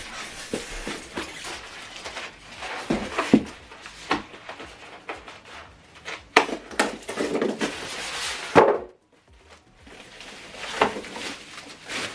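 Packaging being handled during unboxing: irregular rustling with scattered taps and knocks, and a brief pause about nine seconds in.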